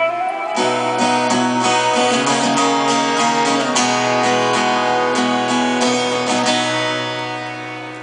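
A band soundchecking on stage: strummed guitar chords ringing out over a steady low note, fading away over the last second or two.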